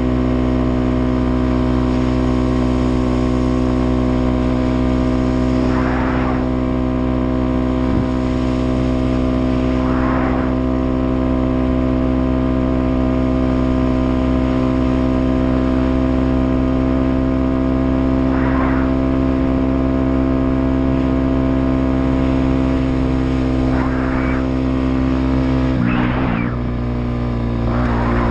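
Dirt bike engine running at a steady pitch as the bike cruises, with a steady hiss over it. Near the end the engine note drops briefly and then picks up again.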